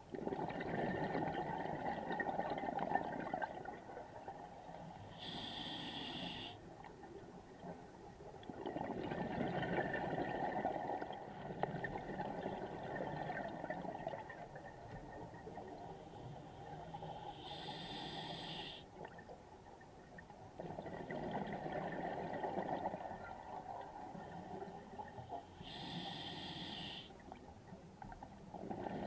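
A scuba diver breathing underwater through a regulator: three short hissing inhalations, each followed by a long, gurgling rush of exhaled bubbles, in a slow cycle of about one breath every 8 to 12 seconds.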